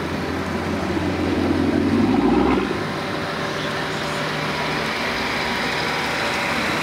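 Car engine running at low speed as cars move slowly past at close range. A deep, steady engine hum is loudest about two seconds in, then drops away, leaving a steady lighter engine and road hiss.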